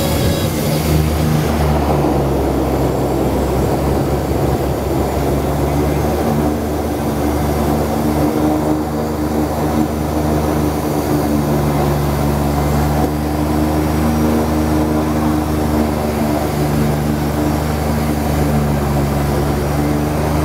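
The turboprop engines of a DHC-6 Twin Otter seaplane, with propellers spinning, running in a steady drone as it taxis on the water after landing. It is heard from inside the cabin.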